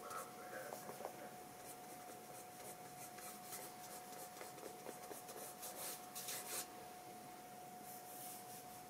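A sharpened wooden stick loaded with ink scratching and scrubbing across sketchbook paper in short, uneven strokes, loudest about six seconds in. A faint steady tone runs underneath.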